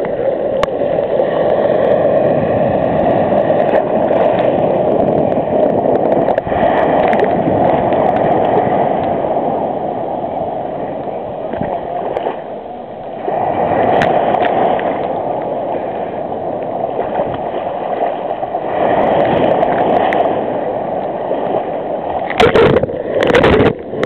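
Sea water sloshing and gurgling around a waterproof camera held at the waterline in breaking surf: a steady rushing noise that swells and eases with the waves, with a couple of sudden louder sounds near the end.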